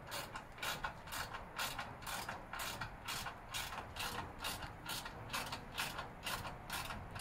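Hand ratchet wrench clicking in repeated quick strokes, about three a second, tightening the bolts of a motorcycle skid plate.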